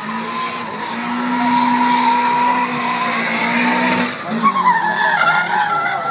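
Subaru drift car sliding sideways: the engine holds a steady high-rev note over tyre squeal for about four seconds, then the engine pitch drops and wavers as the car changes direction.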